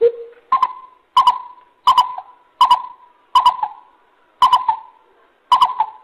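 Greater coucal calling: a series of eight deep, hollow hoots, roughly one every 0.7 s. The first note is low, and the rest step up about an octave higher and keep an even pitch.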